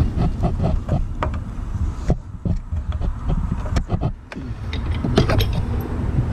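Irregular metal clicks and knocks from a pry bar working a cut door hinge pin loose in the hinge of a Jeep Cherokee door, over a steady low rumble.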